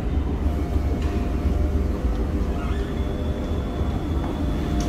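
A steady low rumble from the Star Ferry's engine running while berthed, with faint steady whining tones over it.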